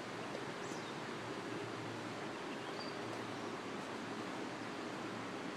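Steady hiss of water outdoors, from flowing floodwater and rain.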